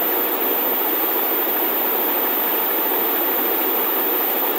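Steady, even hiss of background noise with no change in level or pitch.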